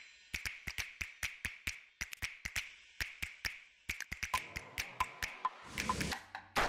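Background music, a percussion track: quick, evenly spaced wooden taps about five a second, with short high pings joining about four seconds in and a low drum hit near the end.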